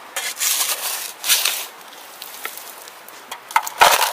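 Bushes rustling and a shovel digging into gravelly soil, in several scraping bursts, the loudest a sharp scrape with a thud near the end.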